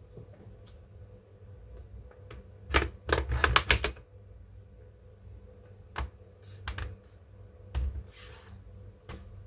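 Sharp clicks and rattles of hard plastic and small metal parts being handled while a laptop is opened and worked on, with a quick run of clicks about three seconds in, a few single clicks later and a short scrape near the end.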